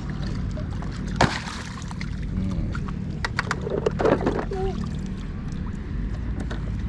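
Water sloshing and splashing over a steady low hum, with a few sharp knocks about a second in and again around three and four seconds.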